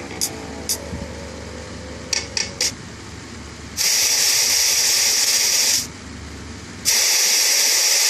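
Three quick high beeps, then two bursts of loud, steady hiss-like noise that switch on and off abruptly, the first about two seconds long and the second about a second.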